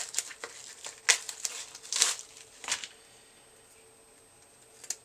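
Vacuum-sealed plastic bubble-wrap packaging around a stack of printed circuit boards being ripped open and crinkled, in several bursts that stop about three seconds in. A light click near the end.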